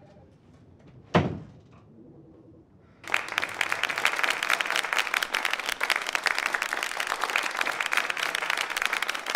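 A door shuts with a single thud about a second in. From about three seconds in, a theatre audience applauds steadily.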